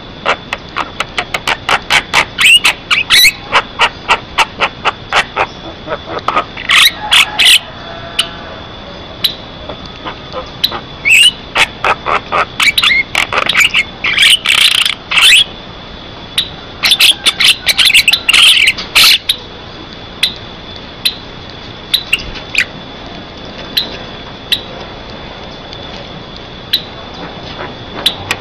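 Javan myna (jalak kebo) singing: rapid runs of sharp clicking notes and chattering phrases in several loud bursts, thinning to scattered single clicks in the last third.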